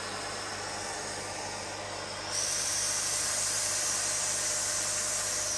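Neakasa P0 Pro pet grooming vacuum running with a steady hiss through its suction brush. A little over two seconds in it turns louder and hissier as the brush is pressed into the cat's fur, and it eases back at the very end.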